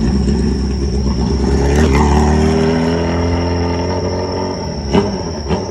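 Kawasaki Zephyr 750's air-cooled inline-four running through a short exhaust with a brass silencer, blipped on the throttle. One rev about two seconds in falls back slowly to idle, then two short sharp blips come near the end.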